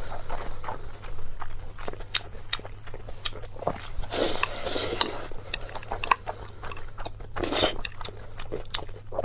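Close-up eating sounds: chewing, with utensils clicking against a bowl or plate many times.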